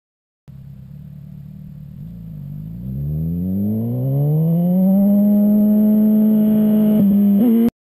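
2007 Suzuki GSX-R 1000's inline-four engine accelerating hard, its pitch and loudness climbing over about three seconds, then held high and steady before cutting off suddenly near the end.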